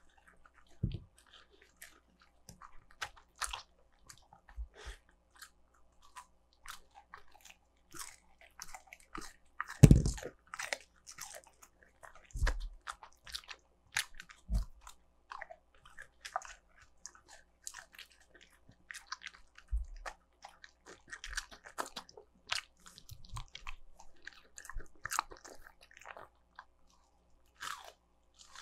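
A Shiba Inu chewing and crunching breaded McDonald's fried chicken: irregular crisp crunches and bites, with one loud knock about ten seconds in.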